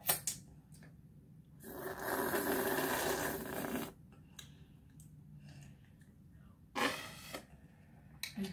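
Thick milkshake being slurped hard through a straw, a loud gurgling suck lasting about two seconds, then a shorter slurp about seven seconds in, with a few clicks around them.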